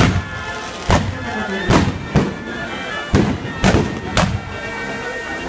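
Fireworks going off in about seven sharp bangs at uneven intervals, over music with steady held notes.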